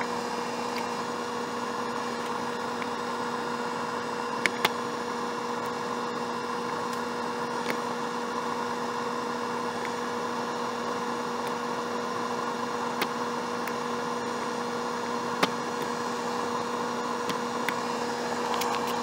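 Steady hum with a faint hiss, broken now and then by a few faint clicks.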